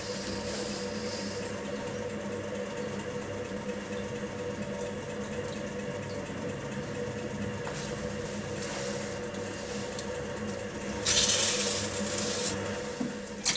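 A potter's wheel running with a steady hum while wet clay swishes under the potter's hands and rib as the pot is smoothed. About eleven seconds in there is a louder wet, splashy rustle lasting a second or so.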